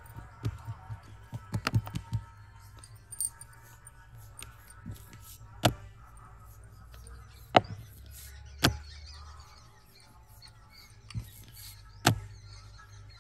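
Close handling sounds of marinated chicken legs being lifted from a clay bowl and wrapped in dough: a handful of sharp, short knocks and clicks, the loudest about halfway through and near the end, over a low steady hum.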